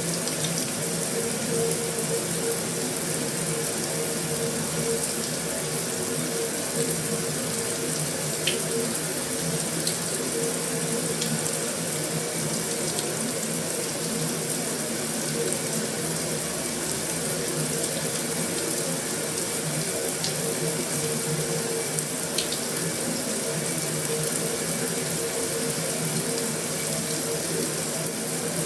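Heavy rain drumming steadily on a metal roof, an even unbroken wash of noise with a few faint, sharp ticks of single drops scattered through it.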